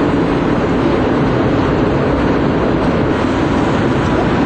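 Loud, steady noise, deep and even, with no distinct beat or tone in it.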